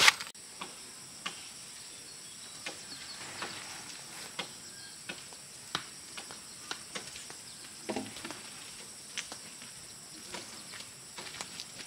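Irregular light taps and clicks, a few each second, with a duller knock about eight seconds in, over a faint steady high whine.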